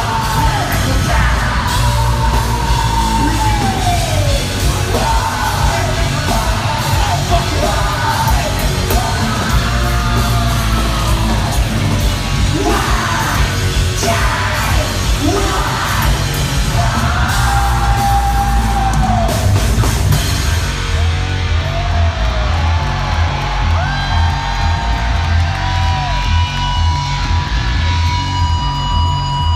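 Heavy rock band playing live and loud: a singer sings and yells into a microphone, holding and sliding notes over a dense wall of guitars and drums.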